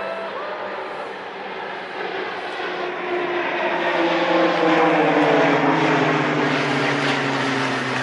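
A formation of KAI KT-1B Wongbee turboprop trainers passing overhead. The drone of their propellers grows louder to a peak about halfway through and falls steadily in pitch as they go by.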